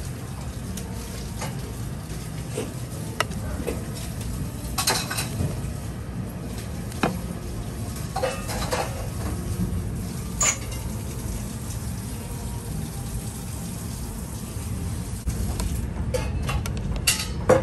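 Metal pans and utensils clinking now and then while oyakodon is cooked, over a steady low hum, with a small cluster of clinks about halfway through and another near the end.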